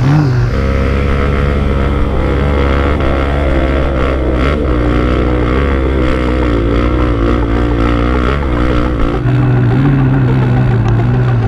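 Dirt bike engine running, its pitch wavering slightly as the throttle is worked, until about nine seconds in.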